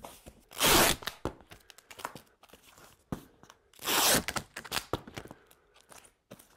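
Packing tape run off the roll across a cardboard box to seal it: two loud rips, about a second in and about four seconds in, with small knocks and taps between them.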